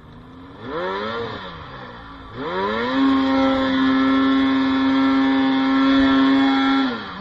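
Snowmobile engine idling, blipped once, then revved up and held at a steady high pitch for about four seconds while the sled pushes through deep powder, dropping back near the end.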